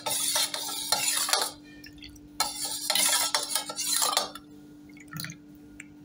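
Steel spoon stirring tamarind water in a stainless steel bowl, sloshing the liquid and scraping against the metal, in two bouts with a short pause between.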